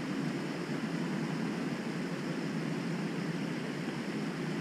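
Steady background noise: a low rumble with a fainter hiss above it, no distinct events.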